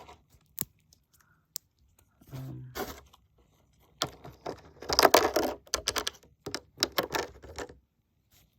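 Toy figures and their packaging being handled and packed back into the box: a couple of sharp clicks, then a loud stretch of rustling and crackling from about four seconds in.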